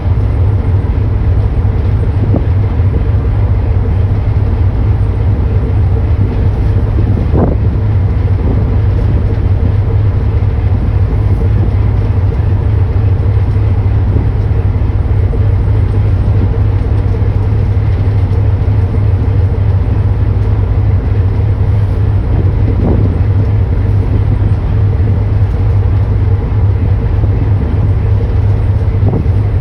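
Boat engine running steadily: a constant low hum under a rushing wash of noise, with a couple of faint knocks.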